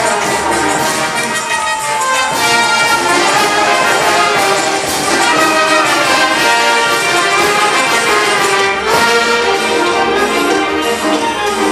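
A brass band playing dance music, with a steady beat and no break.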